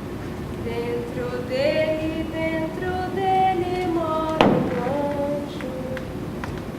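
A woman's voice singing a slow melody without words, in long held notes that step up and down. A single sharp knock sounds about two-thirds of the way through.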